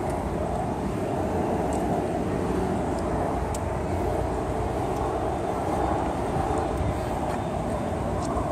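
Steady city street background: a constant mechanical drone with a few faint clicks.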